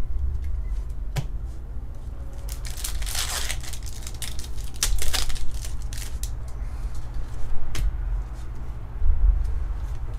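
Foil wrapper of a Pokémon TCG booster pack torn open and crinkled in a few bursts, then the cards inside being handled, with a few sharp clicks and low thumps from hands on the table.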